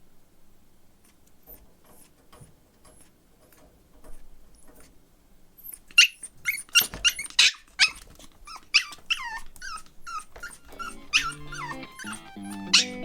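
Pomeranian puppy yipping and whining: a quick run of high-pitched short calls, many falling in pitch, starting about halfway through after a quiet stretch. Music comes in near the end.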